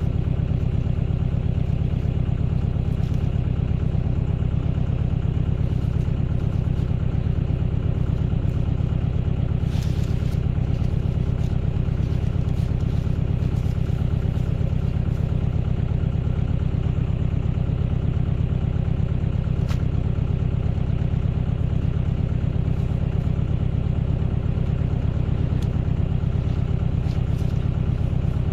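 Tractor engine running steadily at an even speed, with a couple of faint clanks about a third and two-thirds of the way through.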